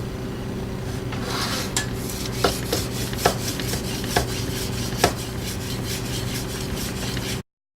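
Stainless-steel chef's knife stroked back and forth on a wet 8,000-grit Japanese water stone, a steady rhythmic scraping with a few sharper clicks; the sound cuts off suddenly near the end.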